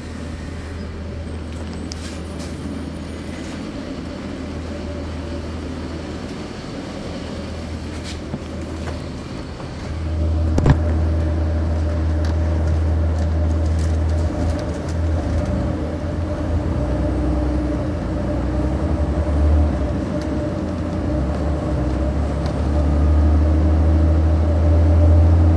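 Cummins ISC diesel engine of a 1999 Nova Bus RTS transit bus, heard from the rear seats, running with a steady low rumble. About ten seconds in it grows louder, with a single sharp knock just after, and it swells again near the end.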